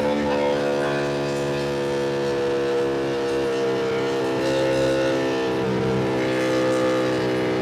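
2025 Ducati Panigale V2's 890 cc V-twin engine pulling at steady road speed, its pitch slowly climbing, dipping briefly about six seconds in, then climbing again.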